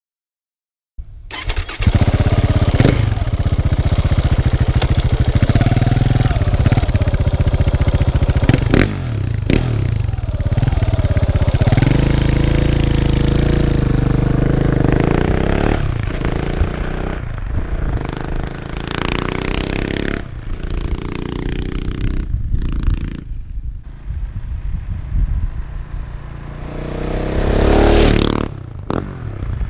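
Husqvarna 701 Supermoto's single-cylinder engine through an Akrapovic slip-on silencer, starting up about a second in and then idling, with a series of short throttle blips and a longer rev near the end.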